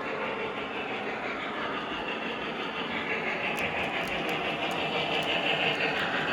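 Model train running on the layout's track: a steady rolling whir from the locomotive's motor and wheels, growing slightly louder, with faint light clicks from about three and a half seconds in.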